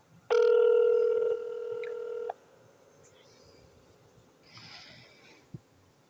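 Telephone ringback tone over a phone's speaker, a call ringing out unanswered: one steady two-second ring near the start, then a faint rustle and a soft tap.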